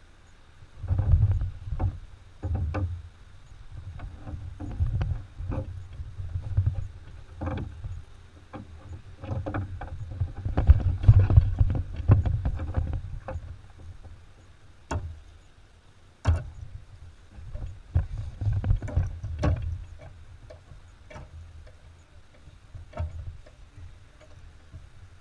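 Kayak being paddled: irregular paddle strokes and water sounds with low rumbling thumps and a few sharp knocks, picked up by a camera mounted on the hull.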